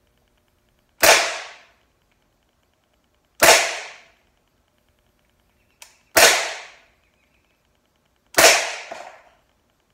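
Gamo PT-85 .177 CO2 blowback pellet pistol firing four single shots, about two to three seconds apart. Each is a sharp crack that rings briefly in the room. A faint click comes just before the third shot.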